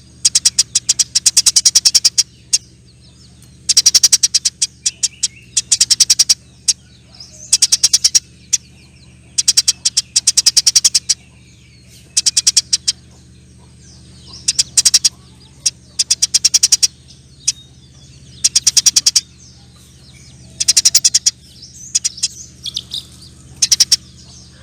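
Eurasian tree sparrow chattering: about a dozen bursts of very rapid, harsh repeated notes, each under a second long, with short pauses between. A faint steady low hum runs underneath.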